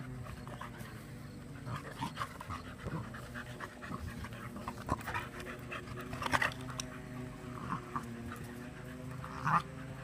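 Dogs (beagles and a boxer) panting and snuffling during play, with many short sharp noises, the loudest about six seconds in and just before the end. A low steady hum runs underneath.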